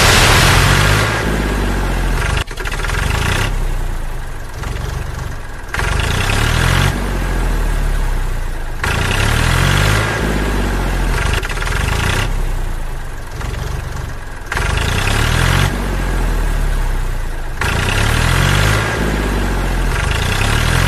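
Vehicle engine sound effect, revving up again and again every couple of seconds, broken by abrupt cuts where clips are spliced together.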